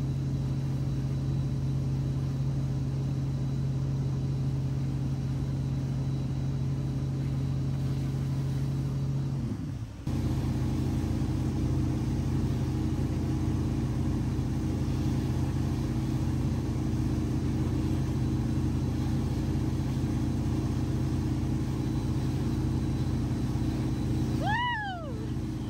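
A towing boat's engine drones steadily under the hiss of churning wake water. Near the end a short high cry rises and falls.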